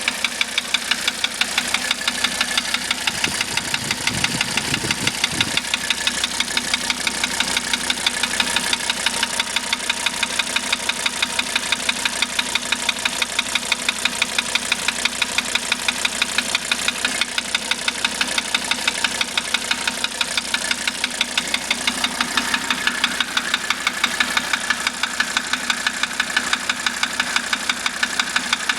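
1985 Mercedes-Benz 300D five-cylinder diesel engine idling with a steady, sharp knock repeating about four times a second. The cause of the knock is unknown to the owner. The engine is running on diesel purge cleaner.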